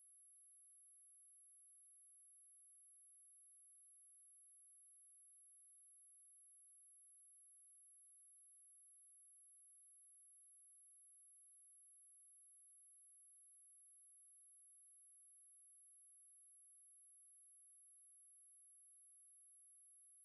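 A steady, unbroken 10894 Hz sine-wave test tone: a single high-pitched pure whistle that holds its pitch and level throughout.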